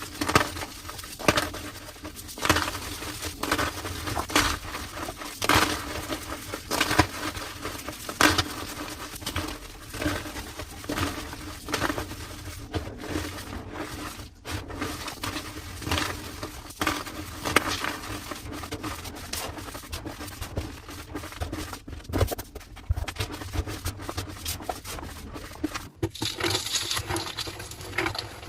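Slabs of homemade gym chalk being crushed, a run of squeaky crunches, about one a second at first and then closer together.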